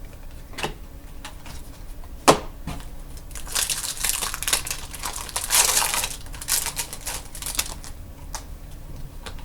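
Hands handling trading cards and their plastic-foil packaging: a few sharp clicks and taps, then several seconds of dense crinkling and rustling.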